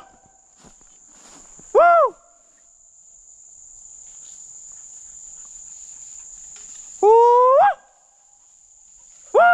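A hunting horn blown in short blasts to call the hounds back in: one about two seconds in, a longer one about seven seconds in, and another at the end, each rising in pitch and breaking upward near its end. A steady high insect trill runs underneath.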